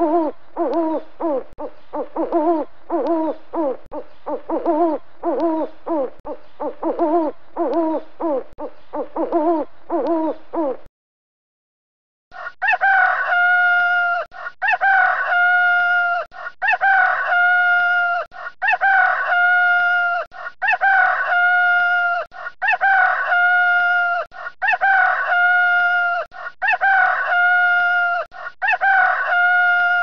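An owl hooting in a rapid series of repeated calls, which stops about eleven seconds in. After a short silence, a rooster crows over and over at an even pace until the end.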